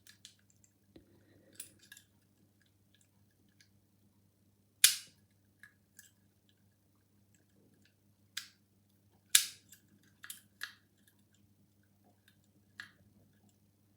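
Lock picks and a tension tool working inside a Legge five-lever mortice deadlock: scattered light metallic clicks and ticks, with two sharp snaps about five and nine seconds in.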